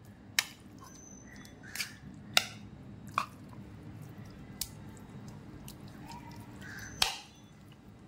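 Metal spoon clinking against a glass bowl and plate as raw chicken pieces are scraped in: about half a dozen sharp clicks spread a second or so apart, over a low steady hum that stops near the end.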